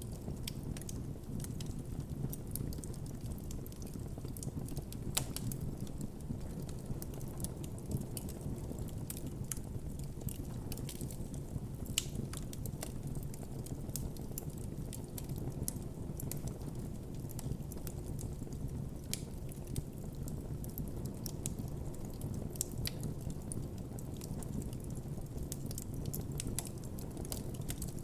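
Campfire burning with a steady low rush of flames and frequent irregular crackles and pops from the burning wood.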